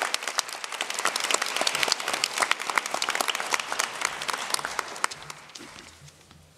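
Audience applauding, a dense patter of many hands clapping that dies away over the last second or so.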